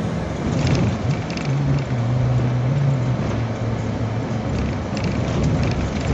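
Road noise inside a moving vehicle's cabin on a wet highway: a steady hiss of tyres on the wet road with a low engine drone, and occasional light ticks.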